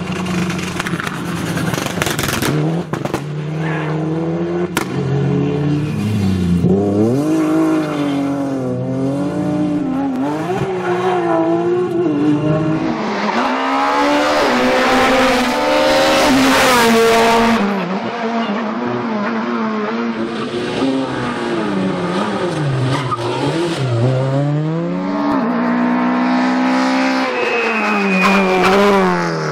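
Rally cars driven flat out through a stage one after another, engines revving high and dropping back repeatedly as they change gear and lift for corners.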